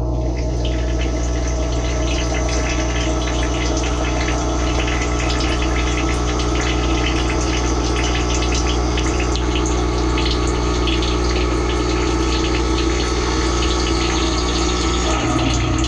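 Dishwasher wash pump running with water spraying from the spray arms onto the dishes, heard from inside the tub. The spray hiss comes on abruptly at the start, over a steady pump hum that changes pitch near the end.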